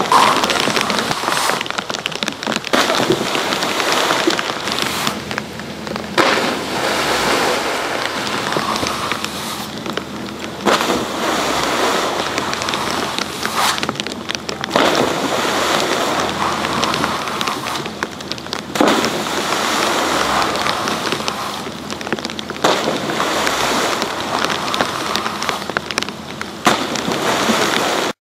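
Steady rushing water noise at a snowboard water-jump landing pool, with a splash right at the start as a rider lands in the water. The noise breaks off briefly several times.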